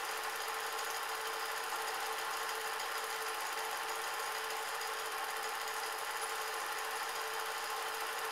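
Cine film projector running: a steady mechanical whirr with a faint hum that does not change.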